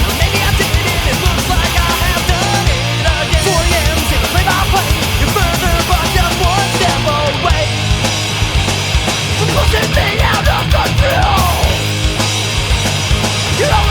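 Punk rock band recording playing loud and without a break: a full band of electric guitars, bass and drums.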